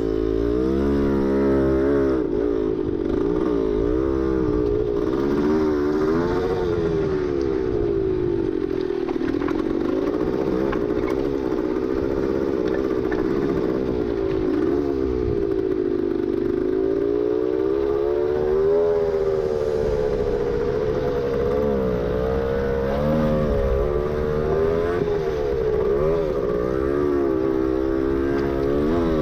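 A 1972 Yamaha LT2 100 Enduro's 100cc single-cylinder two-stroke engine running as the bike is ridden, its revs rising and falling again and again.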